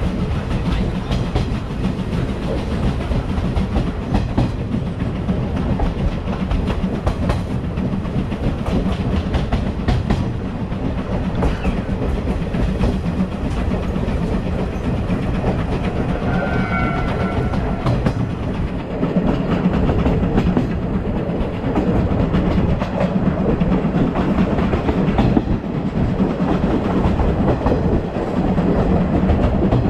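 Passenger coach of a steam-hauled train running at speed, its wheels clattering over the rail joints over a steady low rumble, heard at an open coach window.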